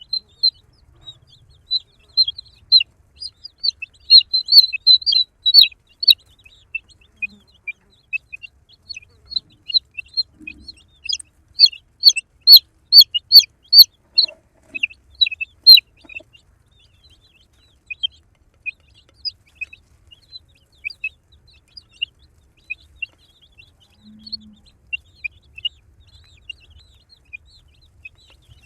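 Baby chicks peeping: many short, high-pitched chirps, several birds at once, busiest and loudest in two spells, then thinning out to scattered peeps in the second half.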